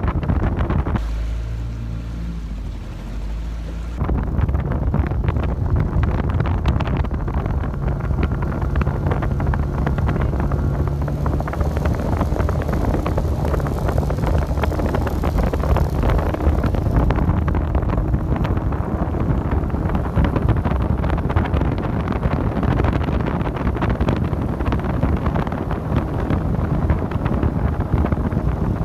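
A small motorboat's engine running at speed, with wind buffeting the microphone and rushing water. About a second in, the wind noise drops for a few seconds, leaving the low engine hum clearer, then it returns.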